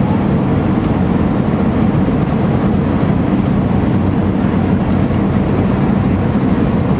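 Steady cabin noise inside an Airbus A319 descending on approach: an even, loud rumble of the engines and the air rushing past the fuselage.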